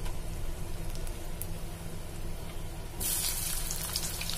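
Hot cooking oil with whole spices sizzling faintly in a frying pan. About three seconds in, sliced onions go into the oil and it breaks into a loud, crackling sizzle.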